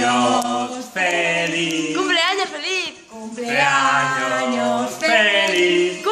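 A man and a woman singing a birthday song together without accompaniment, in long held notes, with a high warbling voice swooping up and down twice between the held phrases.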